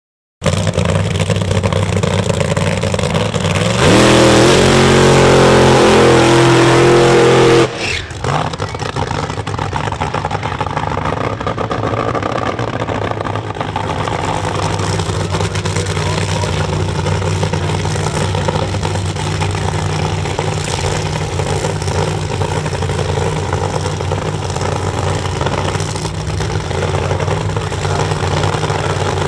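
Drag racing car's engine running loudly, then going to full throttle about four seconds in, its pitch climbing for nearly four seconds before cutting off abruptly: a half-track pass, lifted off early. A steady engine sound carries on afterwards.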